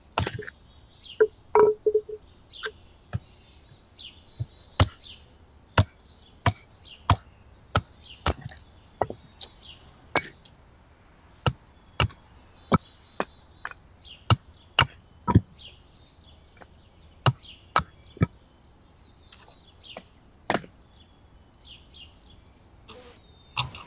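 A hand tool striking wood over and over, about one and a half sharp blows a second, with a short pause near the end. Small birds chirp in the background.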